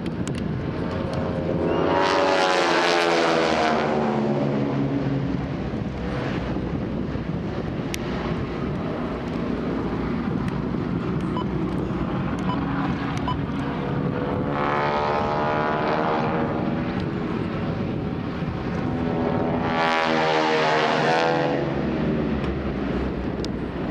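Four North American Harvard trainers' Pratt & Whitney R-1340 nine-cylinder radial engines and propellers droning overhead in formation. The sound swells and shifts in pitch as the formation passes, loudest about two to four seconds in and again about twenty seconds in.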